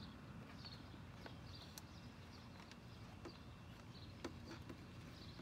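Near silence: a low steady background hum with a few faint, sharp clicks spread through it.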